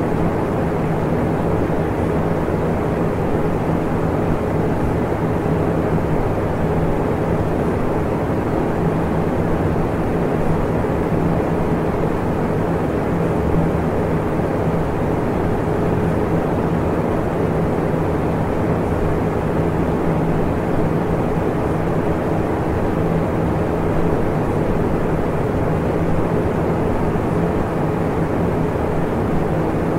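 Steady, unchanging noise, mostly low and mid pitched, with a faint steady hum running through it. It is a masking noise bed of the kind a subliminal recording lays over quiet, unheard spoken affirmations.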